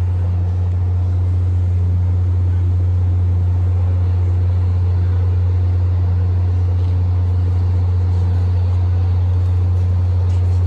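MBTA commuter rail train standing at the platform, its diesel locomotive idling with a loud, steady low drone.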